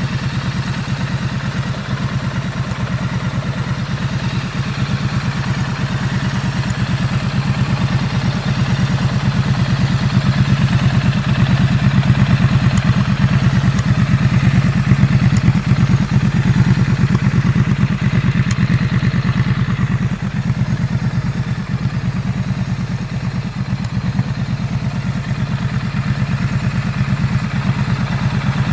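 A Triumph Bonneville Street Twin's 900 cc parallel-twin engine idling steadily, a little louder for a few seconds in the middle.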